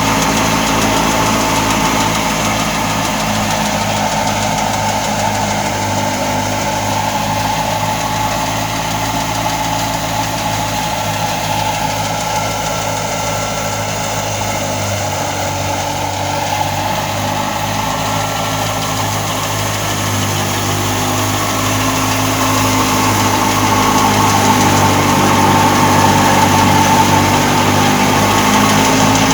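Engine of a wheat harvesting machine running steadily at a constant speed, growing a little louder over the last several seconds.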